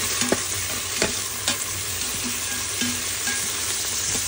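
Onions, green chillies and herbs sizzling steadily in the stainless steel inner pot of an Instant Pot on sauté mode, stirred with a slotted metal spatula that clinks and scrapes against the pot several times.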